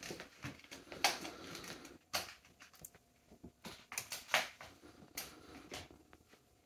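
A few scattered light knocks and clicks, roughly a second apart, over quiet room sound.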